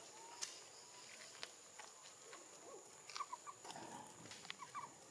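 Faint three-note animal call, short chirps heard twice in the second half, over light rustling and clicks in dry leaf litter and a steady high whine.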